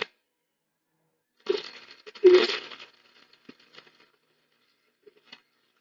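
Metal clinking and rattling for about a second and a half, trailing off into a few light clicks.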